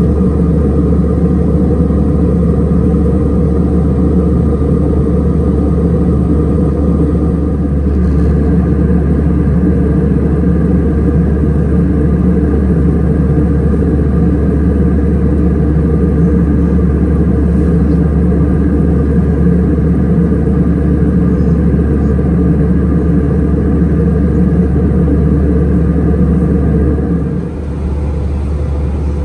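Cabin noise aboard an Airbus A320 airliner in flight on descent: a loud, steady drone of jet engines and airflow with several steady hums layered over a low rumble, dipping briefly about 27 seconds in.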